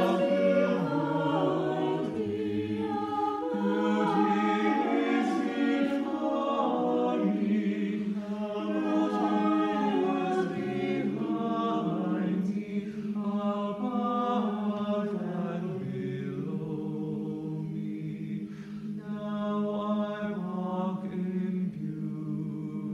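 Choir singing in several parts, with held chords that change every second or two. By the singers' own account the parts go out of tune and clash in places.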